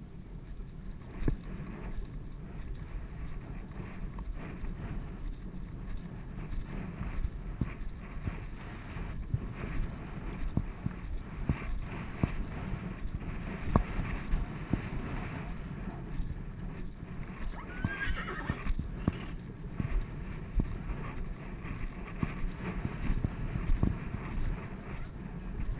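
A ridden horse's hooves thudding irregularly on grass, with a short whinny from a horse about eighteen seconds in.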